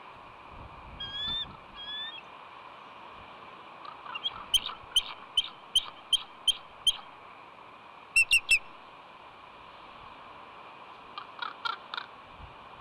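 Bald eagle calling from the nest: a run of about nine sharp, high, piping notes, then three quick notes, and another short run near the end. These are the female's calls for help to her mate while crows try to take her egg.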